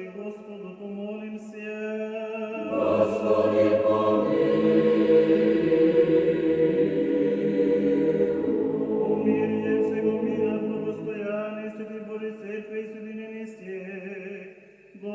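Choral chanting in long held notes; the sound swells fuller and louder about three seconds in and thins out again after about nine seconds.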